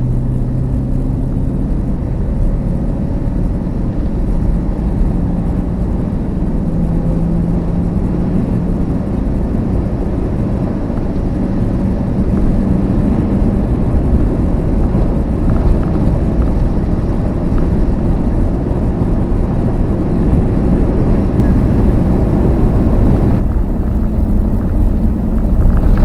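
A van on the move: a steady engine drone under road noise. The engine note shifts pitch a few times and gets louder about halfway through.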